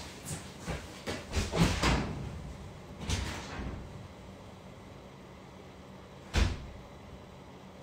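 Footsteps leaving the room in a quick run of thuds, a short scrape about three seconds in, then a door shutting with one sharp thud about six seconds in.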